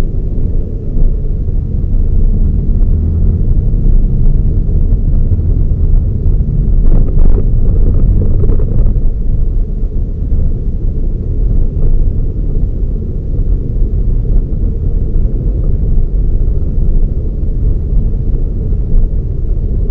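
Toyota Raize GR small SUV on the move: a steady low rumble of engine and road noise.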